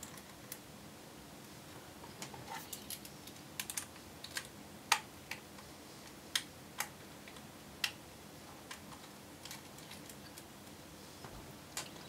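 Small, irregular clicks and ticks of a screwdriver working the side-mount screws out of a 2.5-inch hard drive's metal caddy.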